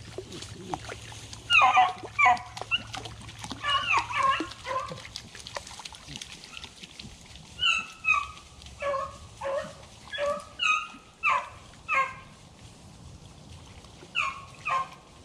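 Beagles giving short, high barks and yips while they search cover for a rabbit: a few calls early, a quick string of about ten in the middle, and two more near the end.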